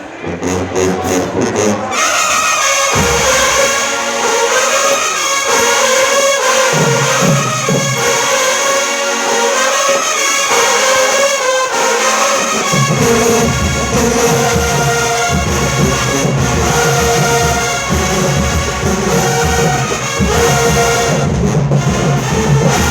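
Marching band brass section and drums playing loudly. A few separate hits open it, then the full band comes in about two seconds in, with the low brass dropping out for a few seconds twice before returning.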